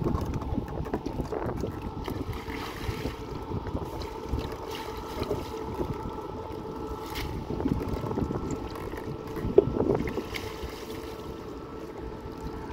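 Small boat's motor running steadily with a constant hum, with wind buffeting the microphone.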